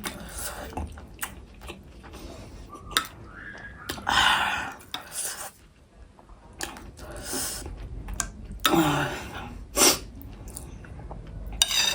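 Close-up eating sounds: a spoon or fork clicking against dishes several times, with a few short noisy stretches of eating jhol momo, dumplings in soup.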